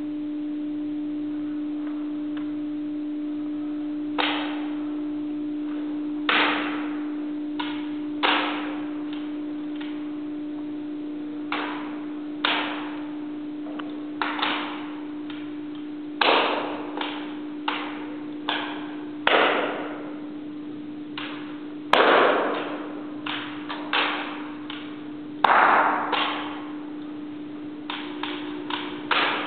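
Ceremonial drill rifle slapping into the hands and clacking during a routine of spins and catches: an irregular series of sharp strikes, some with a short ring, the loudest two about two-thirds of the way through. A steady hum runs underneath.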